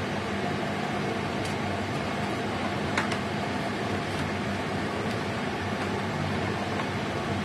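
Steady fan-like hum and hiss from the kitchen while an empty stainless-steel pan heats on the stove, with one faint click about three seconds in.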